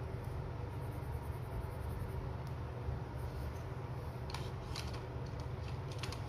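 A few light clicks and rustles over a steady low hum: hands handling wooden watercolour pencils and the paper colour chart, the clicks coming about four and a half seconds in and again near the end.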